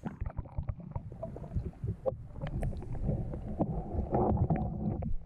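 Muffled underwater sound from a camera held just beneath the surface of a river: water sloshing and gurgling against the housing, with many small clicks and knocks and the high end cut off.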